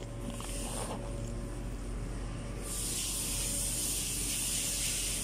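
A steady hiss that sets in suddenly about halfway through and holds, over a faint steady hum.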